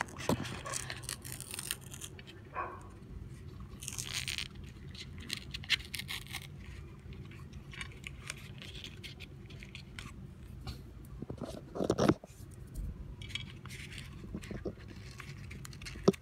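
Close-up eating sounds of a chocolate-swirled ice cream cone: irregular bites and chewing, with the paper cone wrapper rustling now and then. There is a louder burst about twelve seconds in.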